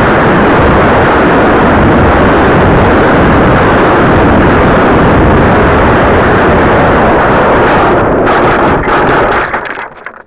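Loud, overloaded rush of airflow and motor noise on the onboard keychain camera's microphone of a foam RC plane, breaking up about eight seconds in and dropping away near the end as the plane comes to rest with its propeller stopped.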